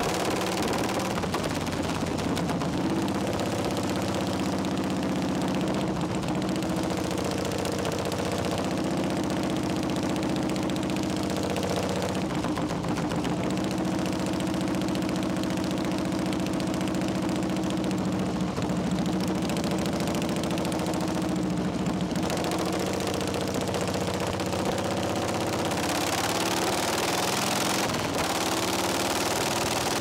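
Harley-Davidson Shovelhead V-twin engine of a chopper running on the road at a steady cruising speed, heard from the rider's seat. Its note shifts briefly twice, and wind noise grows louder near the end.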